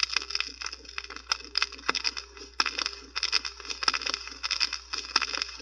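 Dense, irregular crackling, with sharp clicks several times a second.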